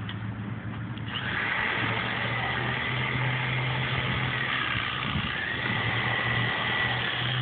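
An engine running steadily, getting louder about a second in, with a wavering high whine over a low hum.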